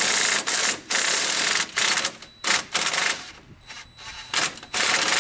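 Impact wrench hammering in several short bursts, then a longer steady run near the end, spinning the nut off the lower pinch bolt of a Polaris Ranger's front strut housing.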